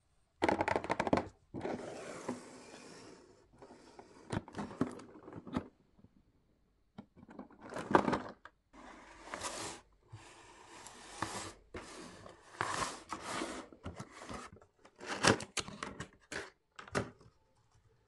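Hands handling a cardboard display box: scraping, rubbing and tapping on the cardboard in a series of separate bursts with short silent gaps, as the box is turned and its lid opened.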